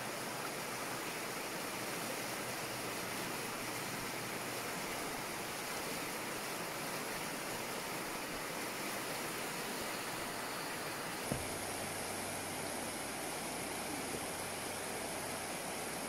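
Shallow river rushing steadily over rocks and gravel riffles. A single brief thump about eleven seconds in.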